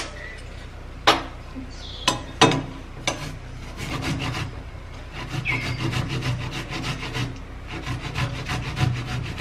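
Fresh tomato grated on a flat stainless-steel grater over a glass bowl: a quick, even run of rasping strokes from about four seconds in. Before that, a few sharp knocks as the grater is set against the bowl.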